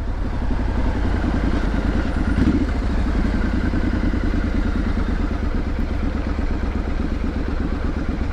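Triumph Street Scrambler 900's parallel-twin engine running steadily under way, its exhaust pulses coming in a fast even beat.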